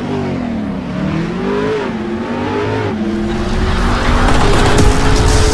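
Car engine revving, its pitch climbing and falling several times, then holding a steady pitch while a rushing noise builds and grows louder over the last second or two.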